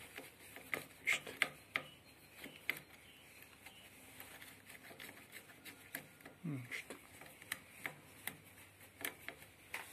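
Scattered small metal clicks and taps as the clamp and spring-loaded chain stop of a saw-chain sharpening machine are worked by hand. A short low grunt about six and a half seconds in.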